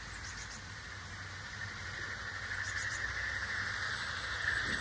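OO gauge model of a Princess Royal class locomotive hauling coaches along the garden railway track. Its wheels and motor make a steady rushing whir on the rails that grows louder as it approaches. A few short bird chirps come over it.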